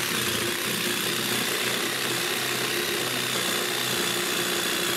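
P.I.T. PST20H-70A/1 20-volt cordless jigsaw running steadily as its blade cuts through a thick wooden board. Under the sawing noise there is a constant high motor whine.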